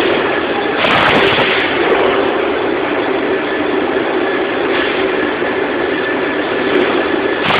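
PETRA DC300A dual-column band saw cutting a 100 mm stainless steel 304 bar: a steady machine hum and blade noise, with a louder, hissier stretch lasting about a second, starting just under a second in.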